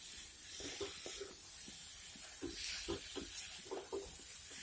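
Wooden spatula stirring and scraping a thick vegetable mixture around a kadai in short, repeated strokes, over a faint sizzle. The vegetables are being dry-sautéed with their spices.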